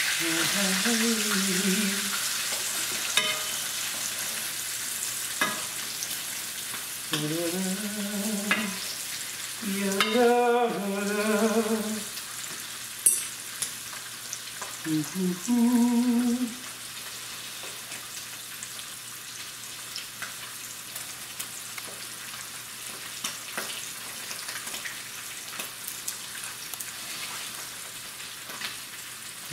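Rib eye steak sizzling in butter and olive oil in a frying pan, the sizzle easing off in the second half, with scattered sharp clicks of metal tongs against the pan. A man hums a wordless tune three times over it, loudest about ten seconds in.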